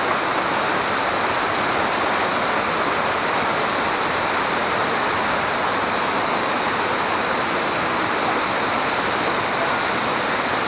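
Waterfall cascades rushing steadily, a constant, even wash of falling water with no breaks.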